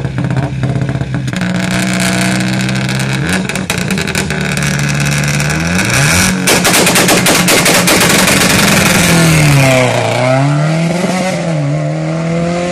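Subaru Impreza rally car's turbocharged flat-four engine held at high revs on the start line with crackling exhaust pops, then a rapid volley of bangs about halfway through as the car launches. The engine climbs hard and is loudest as it pulls away, with two upshifts near the end, each dropping the pitch before it climbs again.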